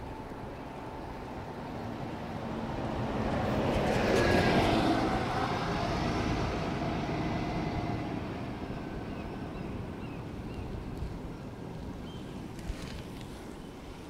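A motor vehicle passes close by, its sound building to a peak about four seconds in and fading away over the next few seconds. Underneath is a steady hiss of wind and tyre noise from the bicycle, with one sharp click near the end.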